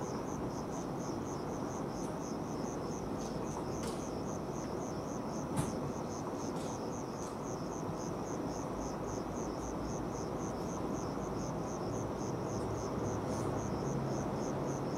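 A night insect chirping steadily in a fast, even pulse, high-pitched, over a steady low rumble.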